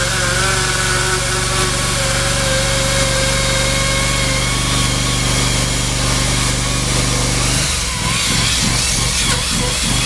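ICS diamond chainsaw running with its bar buried in concrete, grinding through the slab over a steady engine drone. Near the end, about eight seconds in, the low hum drops away and the sound turns rougher and uneven.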